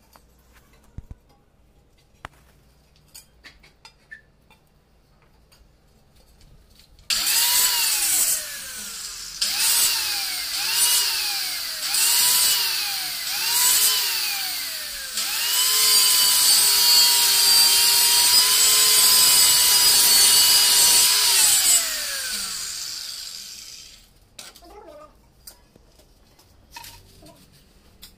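Handheld electric tile cutter (marble cutter) cutting a stone-effect wall tile. About seven seconds in it is switched on and off in about five short bursts, its whine rising and falling each time. It then runs steadily through the cut with a loud hiss for about six seconds and winds down with a falling whine.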